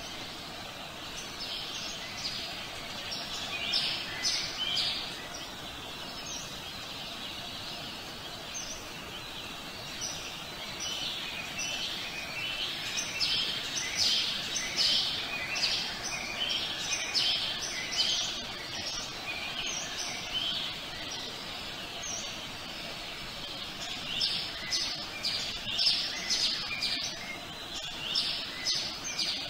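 Songbirds chirping, many short high notes in bursts that come and go, over a steady background hiss of outdoor ambience.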